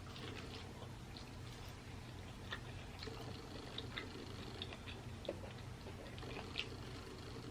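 Quiet room tone: a steady low hum with a few faint, scattered small clicks.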